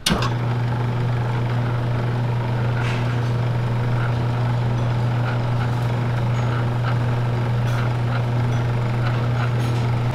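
Electric noodle-cutting machine running, its motor and rollers giving a steady low hum that starts suddenly, with a few faint knocks as the cut noodles feed out.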